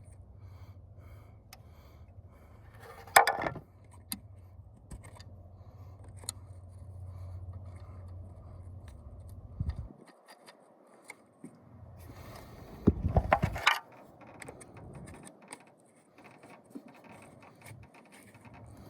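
Small metal parts being handled and forced while fitting a manual choke cable: scrapes and clicks, with louder rattling twice. A low steady hum underneath cuts off about ten seconds in.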